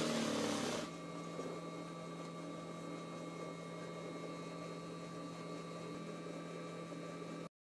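RANEW 130 zigzag embroidery machine running fast under free-motion stitching, stopping abruptly under a second in. A steady electric hum with a faint whine follows, then the sound cuts off suddenly just before the end.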